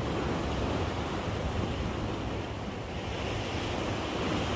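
Sea waves washing against a breakwater, with wind buffeting the microphone as a steady low rumble.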